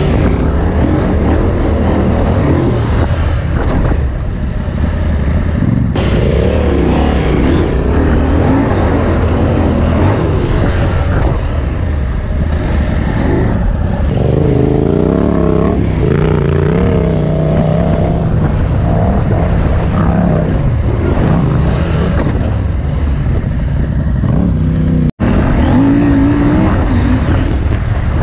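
Adventure motorcycle engine running off-road under changing throttle, its pitch rising and falling. The sound drops out for an instant near the end.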